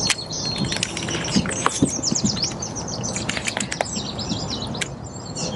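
Songbirds chirping and trilling in a busy chorus of quick, high calls, with a single sharp click right at the start.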